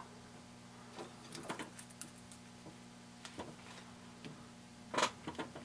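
A few light clicks and taps as a Naze32 flight controller board with soldered pin headers is handled and set down on a workbench, the loudest cluster about five seconds in. A faint steady hum runs underneath.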